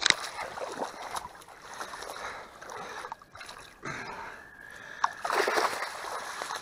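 A carp shot with a bowfishing arrow thrashing and splashing in shallow muddy water as it is hauled in on the line, with a sharp loud splash at the start and more splashing and rustling about five seconds in.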